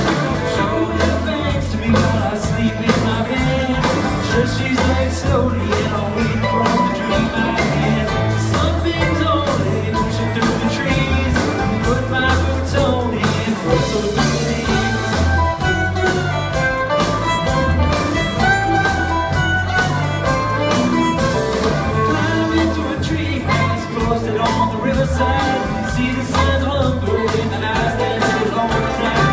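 A string band playing a song live, with a drum kit, upright bass and guitars over a steady beat, heard from the audience in the hall.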